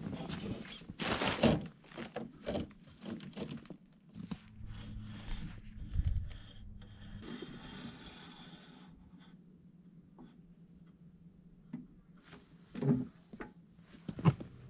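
Metal clatter and knocks of a portable table saw on its folding stand being set down and handled, then its rip fence being slid and locked, with a few sharp knocks near the end. A low steady hum runs for a few seconds midway.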